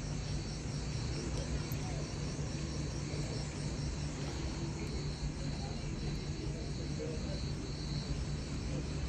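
Insects chirring steadily in the background, a continuous high pulsing buzz, over a steady low hum.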